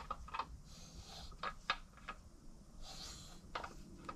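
Faint, irregular clicks and light knocks as a BMW N55 crankshaft is turned slowly by hand in its main bearings during a runout check on main journal number 5.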